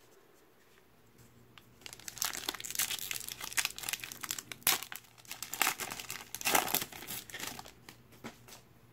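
Foil wrapper of a Mosaic basketball card pack crinkling and tearing as it is ripped open by hand, starting about two seconds in and going on for several seconds, loudest near the end.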